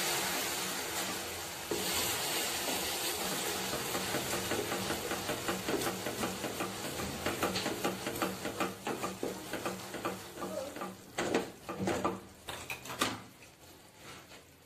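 Melted sugar and butter sizzling and bubbling in a non-stick pan, the sizzle slowly fading with the gas flame turned off. A spoon stirs and scrapes against the pan in quick clicks, loudest a couple of seconds before the end, then stops.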